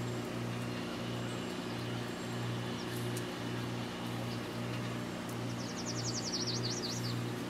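Electric rotisserie motor humming steadily as it turns the spit, with a regular throb about twice a second, and a few faint crackles from the wood fire. A bird's rapid trill comes in near the end.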